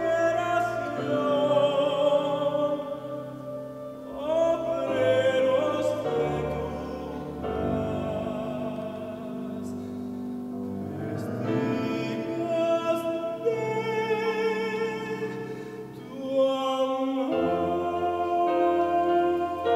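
Male soloist singing in phrases over nylon-string classical guitar, with ensemble accompaniment, in a Latin American mass setting.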